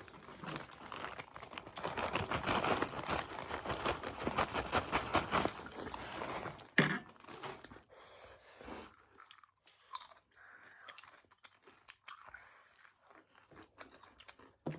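Close-up crunching and chewing of crisp carrot chips. The crunching is dense and loud for the first several seconds, then turns to quieter, sparser chewing.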